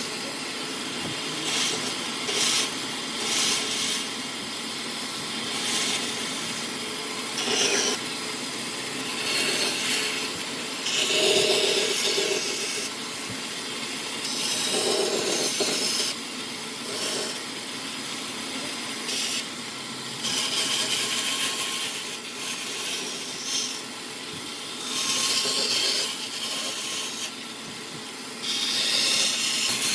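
Wood being cut or shaped with a tool: rasping, sawing-like passes of a second or two, on and off.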